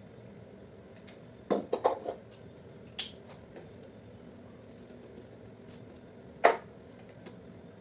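Metal clanking: a quick cluster of clanks about a second and a half in, a click at about three seconds, and one loud clank near the end, like metal parts or tools being handled and set down.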